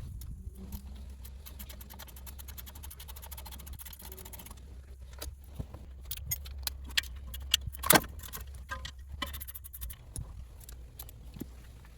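Metal hand tools clicking and clinking while working on a car's front wheel hub: a rapid run of even ticks, then scattered sharp metallic clicks, the loudest about eight seconds in, over a steady low hum.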